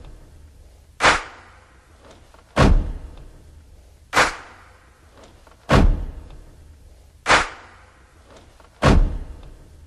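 A slow, sparse drum beat: a deep booming hit alternates with a sharper, crack-like hit, one about every one and a half seconds. Each hit rings out in a long reverb tail.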